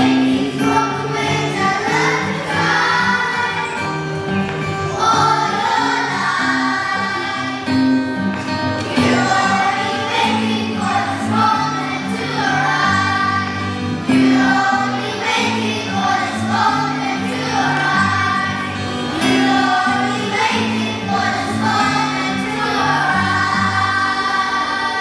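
A group of children singing a song together over instrumental backing, with held low notes beneath the voices; the song fades near the end.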